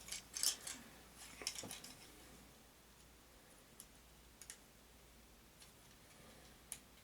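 Plastic Transformers action figure being handled: a cluster of small plastic clicks and rattles in the first two seconds, then a few faint isolated clicks.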